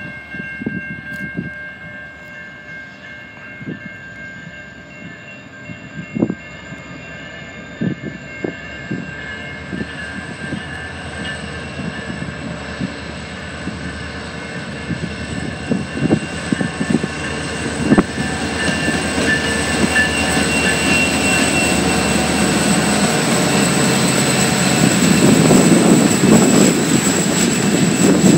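Two EMD SD40-2 diesel locomotives, each powered by a turbocharged 16-cylinder EMD 645 engine, approach and pass at close range. The sound grows steadily louder, with a steady high whine over the engine noise and scattered knocks, and is loudest near the end as the locomotives go by.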